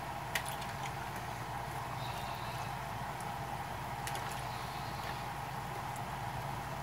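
Steady hum and hiss of a pan of vegetables and broth simmering on the cooktop, with a few light taps as chunks of eggplant are dropped into the pan.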